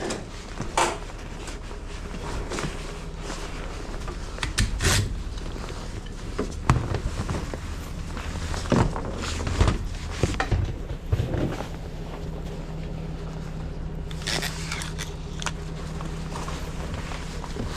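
Scattered clicks, knocks and rustles of hands searching through a car's interior, over a steady low engine hum.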